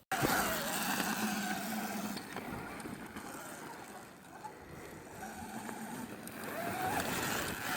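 Motorcycle engine running on a dirt flat track, its pitch rising briefly near the end as it revs.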